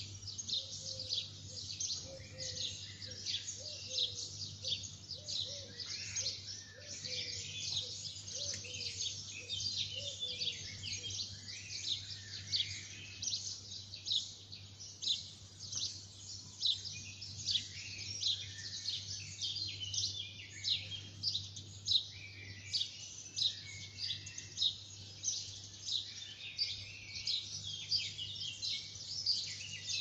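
A dense chorus of many small birds chirping continuously, short high calls overlapping thickly with no break.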